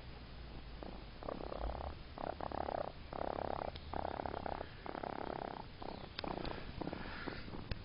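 Baby raccoon purring: a rapid rattling purr in a run of short bouts, each under a second long with brief pauses between, growing weaker near the end.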